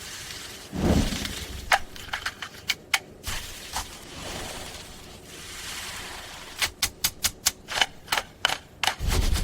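Designed sound of a knife slicing through glass and ice: a dull thud about a second in, then scattered sharp glassy clicks. A fast run of about a dozen crisp clicks comes in the last three seconds, followed by a low thud near the end.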